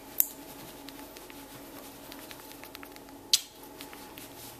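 Faint rustling of a terry towel being rubbed over a wet cat, over a steady low hum, with two sharp clicks, one near the start and one about three seconds later.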